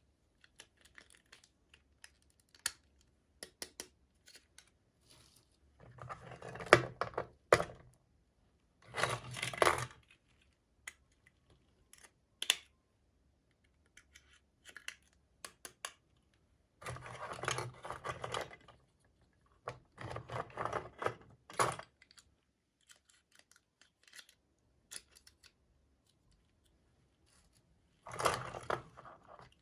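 Toy packaging being handled and opened by hand: scattered small clicks and taps, with five short bursts of rustling and tearing.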